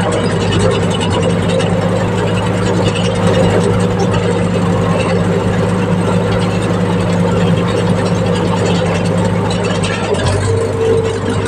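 Compact excavator's diesel engine running steadily, with a brief change in its note near the end.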